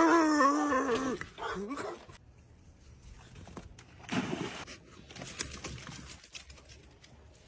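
A dog's drawn-out, wavering vocal call, falling in pitch, for about the first second. About four seconds in, a small dog splashes into a swimming pool, followed by scattered light knocks.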